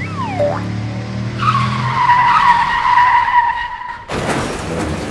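A tyre-screech skid sound effect, a long high squeal starting about a second and a half in, followed about four seconds in by a sudden crash as the ride-on toy car hits a metal trash can.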